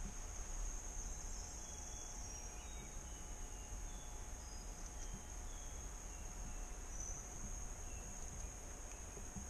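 Steady high-pitched chorus of insects in rainforest, droning without a break, over a low rumble of wind or handling.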